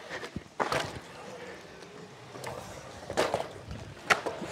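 Gravel bike on skatepark concrete: a handful of sharp knocks and clatters, the loudest just under a second in and about three seconds in, over light rolling noise.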